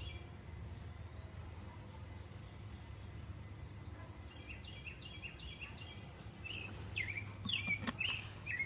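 Birds chirping in short runs of calls over a steady low background hum, with a couple of sharp clicks and a few louder knocks near the end.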